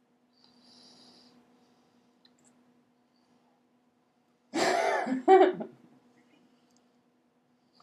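A person's short, loud vocal sound in two parts about halfway through, over a steady low hum.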